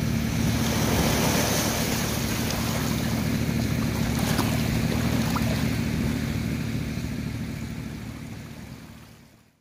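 Small waves washing up on a sandy shore, with wind rumbling on the microphone and a steady low hum underneath. It all fades out over the last two seconds.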